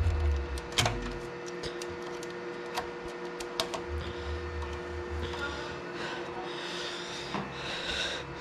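Small clicks, taps and rattles of hands fitting connectors and cables in the cramped back of an equipment rack. The loudest click comes about a second in, with low handling bumps and a scratchy rustle later on, over a faint steady hum.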